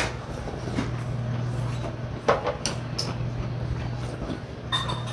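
A few sharp clinks and knocks of tableware, the loudest a little over two seconds in and a short ringing clink near the end, over a steady low hum.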